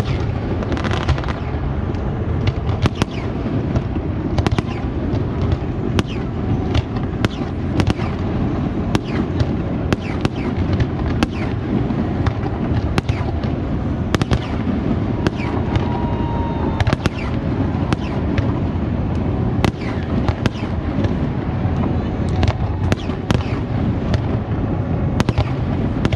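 Zambelli aerial fireworks display going off: a steady run of sharp bangs and crackles over a continuous low rumble.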